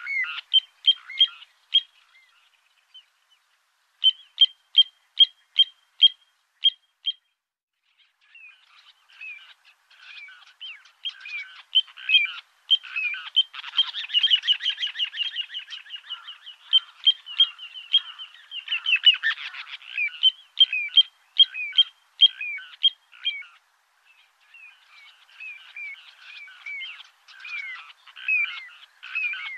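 Frogs calling in a chorus of short, repeated croaks. At first there are a few sharp pips, about two a second, with gaps between them; from about eight seconds in, many calls overlap in a dense run.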